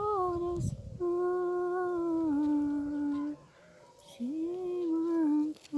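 A woman humming a slow melody without words, holding long notes that glide gently between pitches, with two short pauses for breath.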